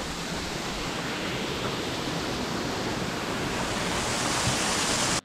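Rushing water, a steady hiss that grows a little louder toward the end.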